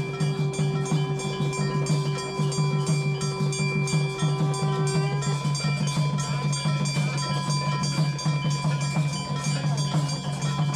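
Devotional hymn music with fast, steady percussion strikes and ringing bell-like tones. One sustained ringing tone stops about five seconds in.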